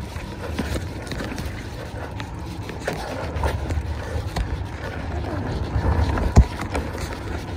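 Mountain bike rolling over rough ground: a low rumble with scattered rattles and clicks, and one sharp knock about six seconds in.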